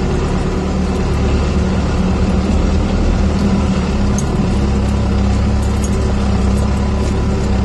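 4BT Cummins four-cylinder turbo diesel in a Ford F150 pickup running steadily while the truck drives slowly over a gravel track, a low drone heard from inside the cab that rises slightly about a second in.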